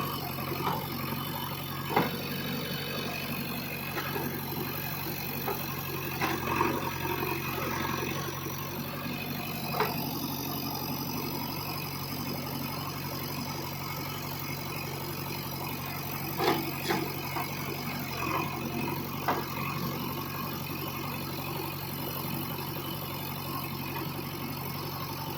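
JCB backhoe loader's diesel engine running steadily, with a few short sharp knocks scattered through it.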